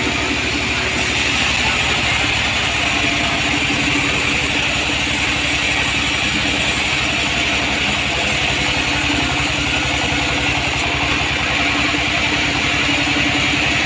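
Sawmill band saw running steadily, with its engine pulsing underneath. A higher hiss joins about a second in and drops away near the end.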